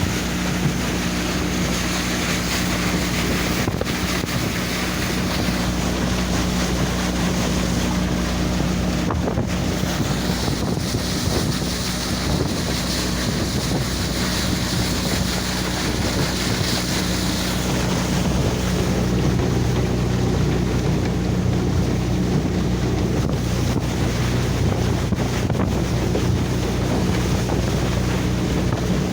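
Boat engine running steadily under way, with wind buffeting the microphone and water rushing past the hull.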